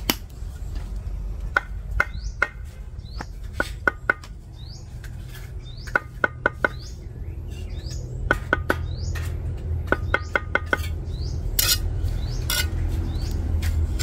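Steel mason's trowel tapping hollow clay bricks down into a fresh mortar bed: clusters of sharp, slightly ringing clicks, then a couple of short scrapes of mortar near the end. A bird repeats a short chirp over and over behind it.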